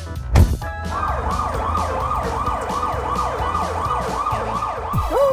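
Siren in a fast yelping pattern, its pitch sweeping up and down about three to four times a second, over a steady low rumble. A single thump comes about half a second in, before the siren starts.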